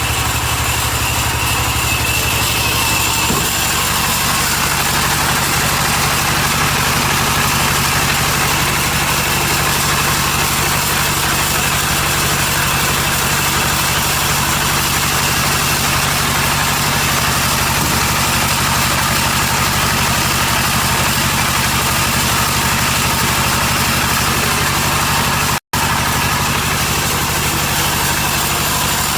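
An engine running at a steady, unchanging speed, an even drone that drops out for an instant near the end.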